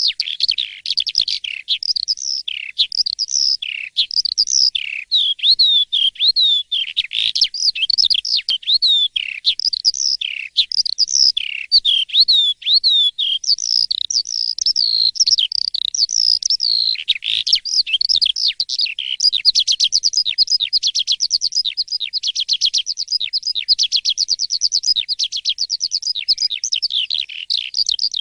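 Asian pied starling (jalak suren) singing without pause: a fast, varied stream of whistles, chirps and slurred notes, breaking into a quick rattling trill of rapidly repeated notes about two-thirds of the way through.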